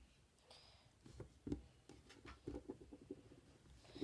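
Faint, irregular taps and clicks of small macaron-shaped erasers being handled and taken apart by hand.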